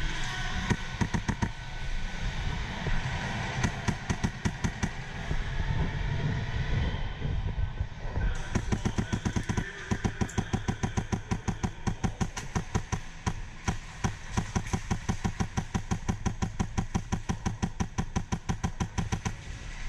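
Polarstar HPA-powered airsoft rifle firing. Scattered shots over background arena noise at first, then a long string of quick, evenly spaced shots from about eight seconds in to near the end.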